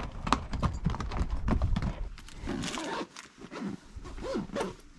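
Pack mules' hooves clopping on a rocky dirt trail as the string walks past, fading out about two seconds in. After that come quieter rustling sounds, as of a backpack being gone through.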